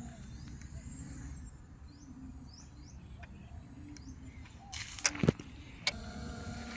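Outdoor ambience with a few short high bird chirps, broken about five seconds in by two or three sharp clicks. Near the end a steady pitched hum sets in.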